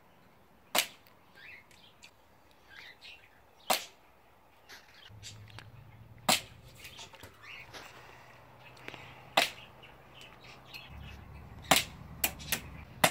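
Glock-style BB pistol firing single shots, each a sharp crack. The first four come about three seconds apart, then a quicker run of three or four near the end.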